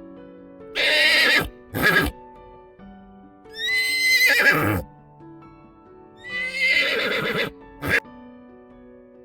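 A horse neighing: three long, wavering whinnies of about a second each, with a short burst after the first and the last, over light background music.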